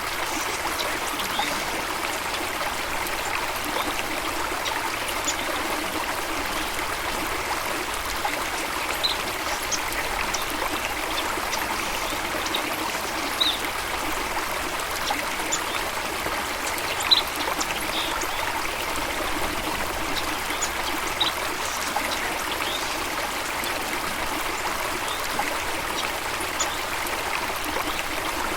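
Running water, a steady trickling and rushing flow, with short high bird chirps scattered through it every second or two.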